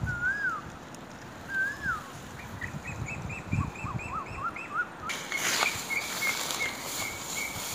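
Wild birds calling: a few swooping whistled notes, then quick series of short chirps. About five seconds in, a faster run of higher chirps sounds over a steady hiss, with a couple of soft thumps.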